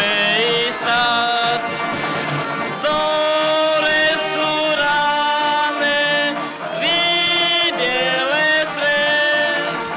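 A solo singer performing a high melody without clear words, holding notes and sliding up and down between them.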